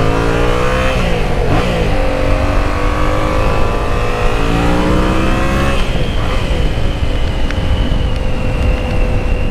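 Yamaha MT-07's parallel-twin engine accelerating through the gears, its pitch climbing and then dropping at each of about three upshifts, before it settles to a steady cruise.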